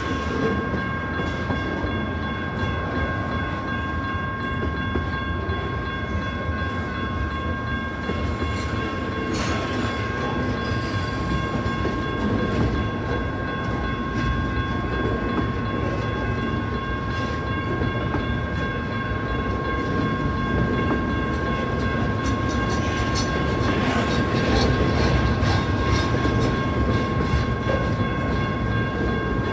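BNSF double-stack intermodal freight train rolling through a grade crossing: a steady rumble with the clatter and occasional clanks of the cars' wheels. The crossing's electronic bells ring steadily over it.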